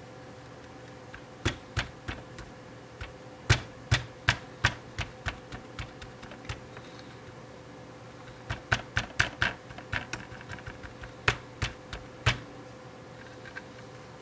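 Fingers tapping and prodding the powered-up circuit board and open plastic case of a Polaroid 312 LED camera light: irregular small clicks and taps, some in quick runs, to shake loose an intermittent fault that makes the light cut out.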